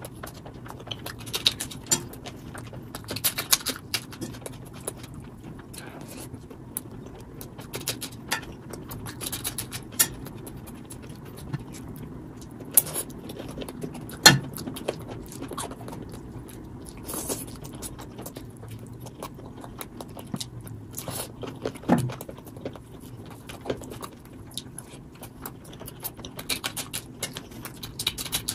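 Close-miked eating sounds of a person eating rice and chicken curry by hand: wet chewing, lip-smacking and squelching of food, with irregular sharp clicks and a few louder smacks, the loudest about halfway through.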